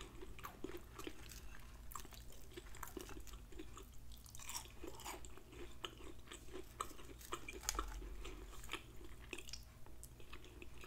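Faint, close-miked chewing and mouth sounds of someone eating, made up of many small, irregular clicks and smacks.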